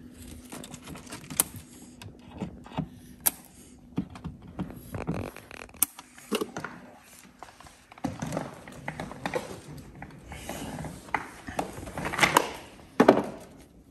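Hand work on cabling inside a plastic service hatch: irregular clicks, taps and rustling as a coil of cable and a screwdriver are handled, with two louder knocks near the end.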